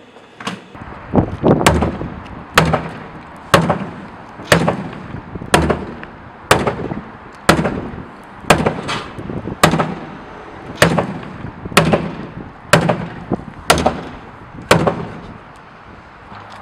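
Heavy blows struck against a hard plastic waste bin in a vandalism test: about fifteen sharp cracks, each with a hollow thud, landing roughly once a second and then stopping.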